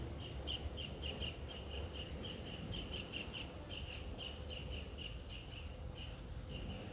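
An unseen small animal chirping: a run of short, high chirps at about three to four a second, with a few short gaps, over a low rumble.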